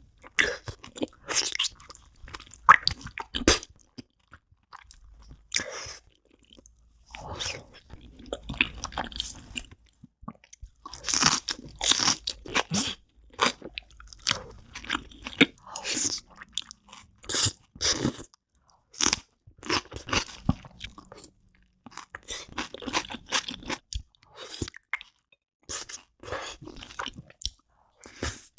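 Close-miked eating sounds of a person biting and chewing spicy braised beef feet, in irregular runs of short crunchy bites and chews with brief pauses between.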